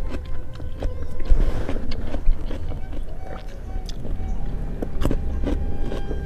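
Chewing and crunching of raw vegetables and jengkol eaten by hand: an irregular string of small crisp clicks over a low rumble.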